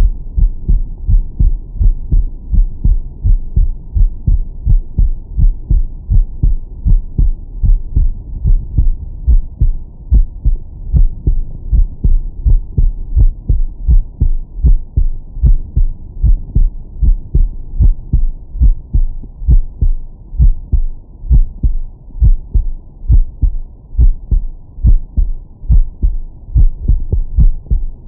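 A man's heartbeat picked up by a Stemoscope digital stethoscope on the chest, in its 20–1000 Hz filter mode: a loud, steady, regular lub-dub with a deep bass thump on each beat.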